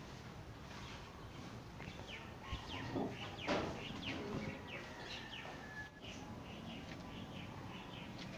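Small birds chirping, many short quick chirps overlapping.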